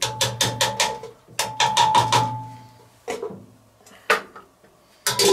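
Wooden spoon knocked rapidly against the rim of a stainless steel goulash kettle, the metal ringing, in two quick runs of knocks, then single knocks, and a clatter of metal near the end.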